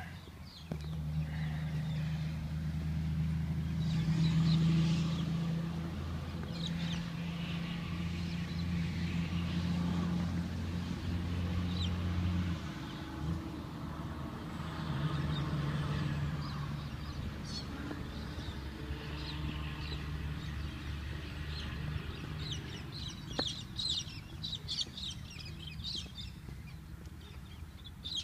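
Low steady rumble that breaks off about halfway through and returns more faintly, with birds calling, their calls growing busier near the end.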